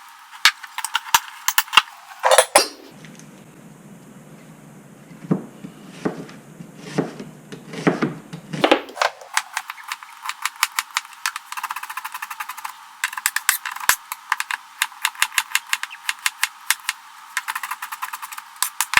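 A utensil clinking and scraping against a bowl as sliced peppers and mushrooms are stirred with Worcestershire sauce. There are a few separate knocks in the first half, then a fast run of clicks for the second half.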